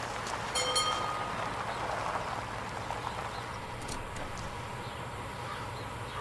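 Quiet outdoor ambience with a steady low hum, and one short high-pitched squeak about half a second in.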